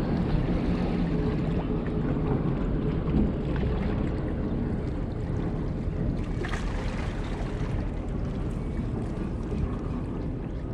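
Wind buffeting the microphone in a steady low rumble, over choppy harbour water lapping against the rocks of the pier.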